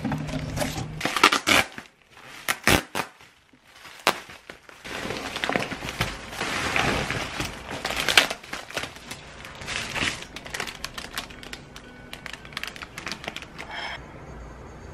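Crinkling and rustling of a foil insulated delivery bag and plastic bubble wrap being opened and pulled apart by hand, full of sharp crackles; it eases off near the end.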